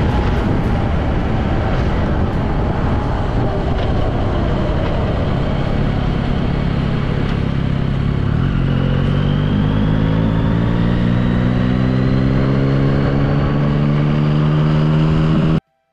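Yamaha XSR900 motorcycle's three-cylinder engine accelerating on the road, with heavy wind rush on the microphone. From about five seconds in, the engine note rises slowly and steadily in pitch. It cuts off abruptly just before the end.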